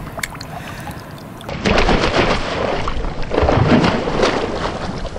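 Water splashing as a hooked rohu thrashes in a landing net at the surface. Quieter lapping at first, then loud splashing that starts suddenly about a second and a half in and comes in irregular surges.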